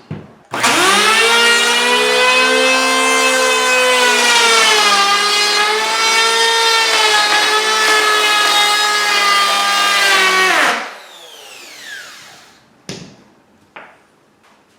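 Performax 3-1/4 inch electric hand planer switched on and running with a high, steady motor whine, its pitch sagging a little midway. It is switched off after about ten seconds and winds down with a falling whine, followed by a couple of short knocks.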